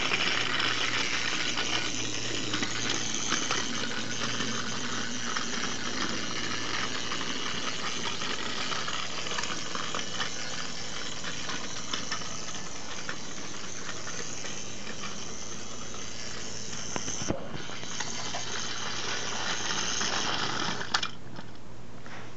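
Battery-powered TrackMaster Iron Bert toy engine running on plastic track: a steady motor whir with the plastic wheels and truck rattling over the rails. It stops abruptly near the end.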